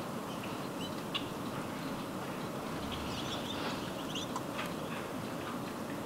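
Small birds at a feeder giving short, high chirps and call notes, scattered several times, over a steady background hiss.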